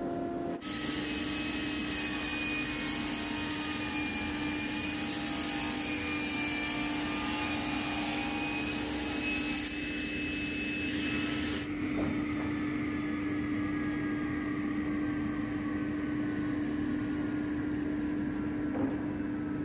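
Sliding table panel saw running with a steady hum while its blade cuts lengthwise along a long wooden board, a hissing cutting noise that stops about twelve seconds in, after which the saw runs on freely.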